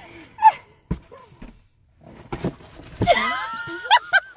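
A person's voice: a short cry, a couple of knocks against something solid, then a long high-pitched squeal that breaks into quick bursts of laughter near the end.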